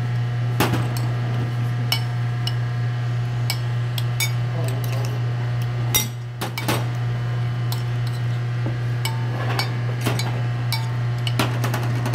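Metal spoon clicking and scraping irregularly against a ceramic bowl while mixing diced potatoes with mayonnaise, over a steady low hum.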